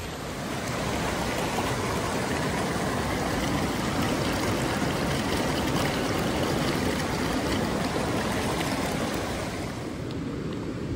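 Shallow mountain creek rushing steadily over rocks, heard up close while wading it; the sound eases near the end.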